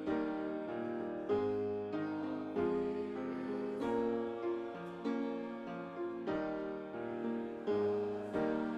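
Piano playing slow chords, a new chord struck about every second and a quarter and left to fade.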